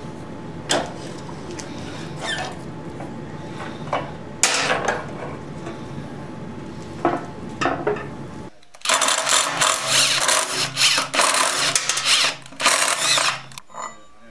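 Scattered clicks and clinks of metal parts over a steady low hum. Then, from about nine seconds in, a cordless power tool runs loudly in bursts for about five seconds, undoing the rear sprocket bolts.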